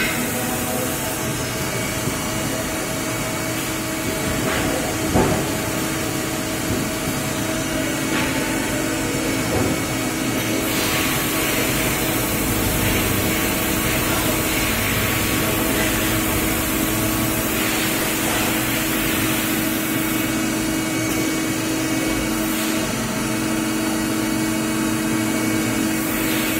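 Steady machine-shop noise from CNC lathes and an industrial robot cell running: a constant hum with a steady tone under a hiss, and a short knock about five seconds in.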